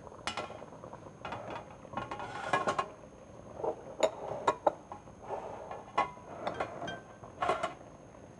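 Metal kitchenware clinking and knocking: a round baking tray and a steel stockpot being handled on the stove, with irregular light strikes, some ringing briefly.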